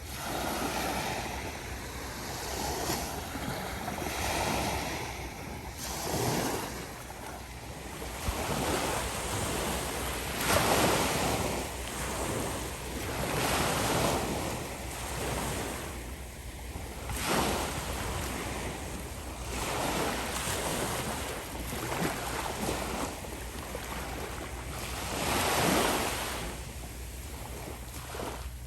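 Small ocean waves breaking and washing up the beach, one surge every two to three seconds, the strongest about ten seconds in, over a steady low rumble of wind on the microphone.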